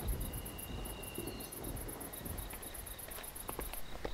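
Very high-pitched insect chirping in a rapid, even pulse of about nine chirps a second that stops shortly before the end, with a few faint clicks in the second half.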